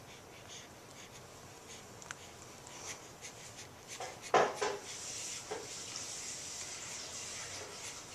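Soft rubbing and rustling handling noises with a few light ticks, broken by one short, loud burst a little past halfway.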